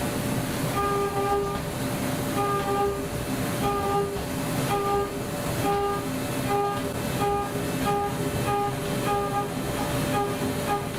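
CNC milling machine cutting aluminium at high speed. A steady spindle tone runs under a pitched whine from the end mill, which comes and goes in short spells about once a second as the cutter engages the aluminium.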